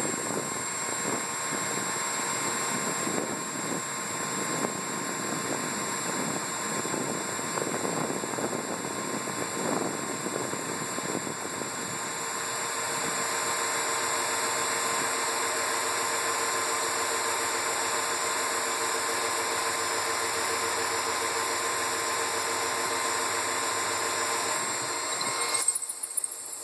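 Power drill running continuously while boring knob holes in a cabinet door, with a steady motor tone throughout. The sound is rougher and more uneven in the first half and evens out from about halfway.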